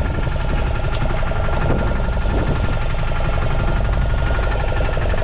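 A fishing boat's engine running steadily, with a few light clicks over it.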